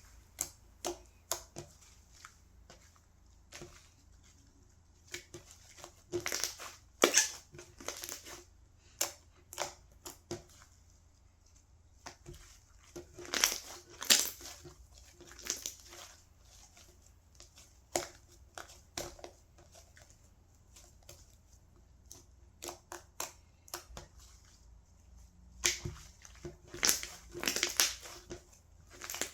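Slime being pressed and worked by hand, giving irregular crackles, clicks and pops, in denser bursts several times.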